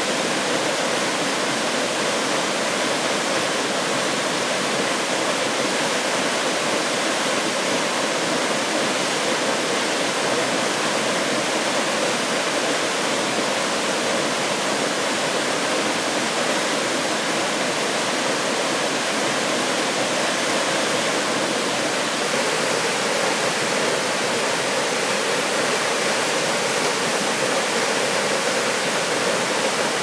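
Seerenbach Falls, a tall waterfall, pouring down a cliff onto rocks: a steady, unbroken rush of falling water.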